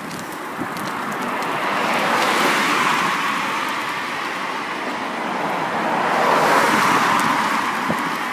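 Road and traffic noise from travelling along a road, a steady rush of tyres and wind that swells twice.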